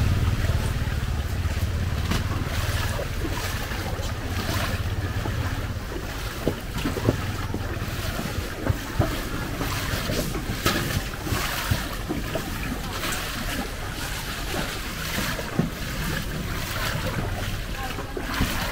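Heavy rain falling with wind on the microphone: a steady rushing hiss with scattered sharp taps. A low rumble underneath fades out about six seconds in.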